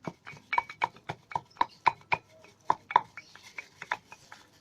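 Saga leaves being pounded with a pestle in a mortar: a quick run of sharp knocks, about four a second, that gives way to softer taps and scraping in the last second and a half.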